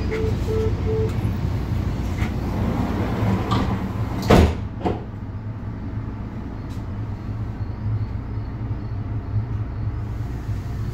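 Commuter train door-closing warning beeps, a few quick even beeps in the first second, then the passenger door sliding shut with one loud bang about four seconds in. A steady low rumble from the stopped train runs underneath.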